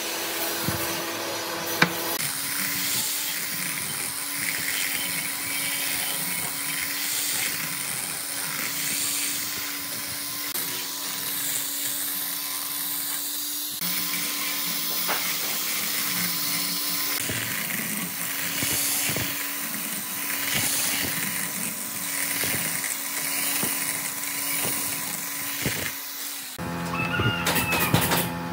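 Electric random orbital sander running steadily with a high whirring hiss as it sands a pine slat lattice panel. Near the end it stops and gives way to sharp wooden knocks and clatter.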